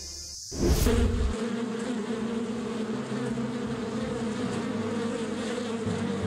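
Music stops about half a second in and gives way to yellowjacket wasps buzzing, a steady, continuous drone.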